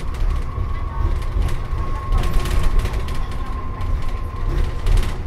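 Interior of a moving Dennis Trident Optare Olympus double-decker bus: a deep engine and road rumble, with rattling and clicking from the body panels and fittings, thickest about two to three seconds in. A steady high whine rides over it and stops near the end.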